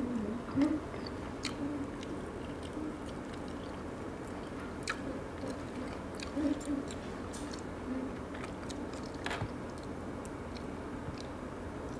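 Close-up chewing and biting of lobster meat, with scattered small clicks and mouth smacks, and a few brief low hums, the loudest about half a second in.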